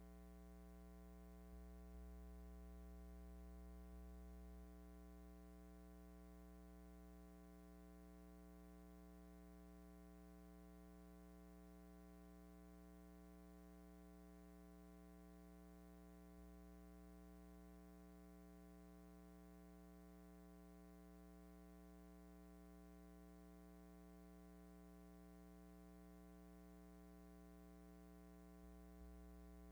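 Near silence: only a faint steady hum made of several held tones, with no sound from the machinery shown.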